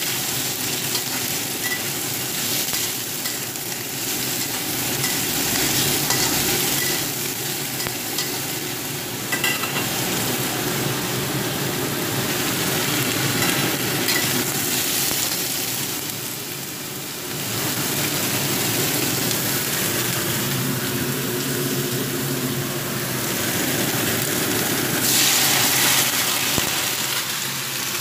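Sliced green bell pepper sizzling and frying in oil in a stainless steel wok, stirred and turned with a spatula scraping against the pan.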